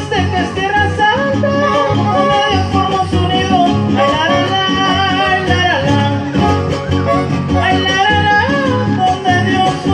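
Huapango played by a trío huasteco: a violin carries a gliding, wavering melody over the steady rhythmic strumming of a jarana huasteca and a huapanguera.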